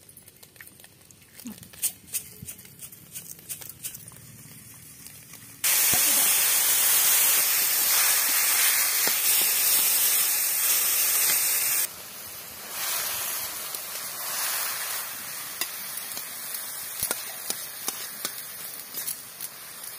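Small chuna fish frying in hot oil in an iron wok: a loud, steady sizzle starts abruptly about six seconds in, then drops to a quieter sizzle with scattered crackles about twelve seconds in.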